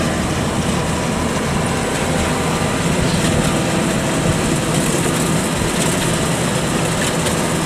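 Kubota DC-105X combine harvester running steadily while it crawls slowly through the rice and cuts: its engine and harvesting machinery make a continuous, unchanging noise.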